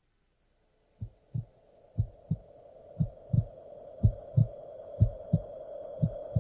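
Muffled double thumps in a heartbeat rhythm, about one pair a second, over a steady hum, starting about a second in.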